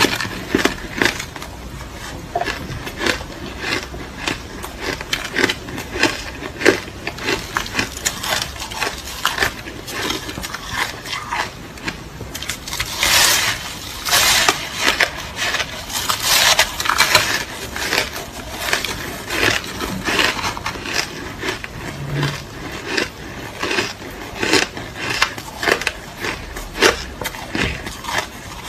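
A person chewing crushed ice close to the microphone: dense, irregular crunching, with louder bursts of crunching about 13 and 16 seconds in.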